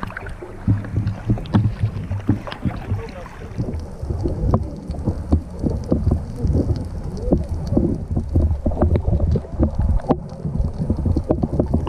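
Raw underwater sound picked up by a snorkeller's camera: a steady low rumble of moving water with frequent short pops and clicks.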